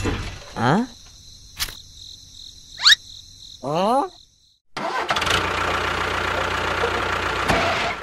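A run of short cartoon sound effects, quick rising whistle-like swoops and a click, then, after a brief silence, a steady engine-like rumble that cuts off abruptly near the end.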